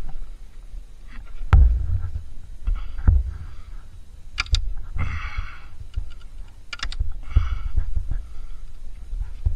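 A wooden stick being levered against a Yamaha TW200's bent shift lever to bend it back out, because it had been bent too far in and was hitting the engine case. Scattered knocks and clicks, with a few low thumps, the loudest about one and a half seconds in.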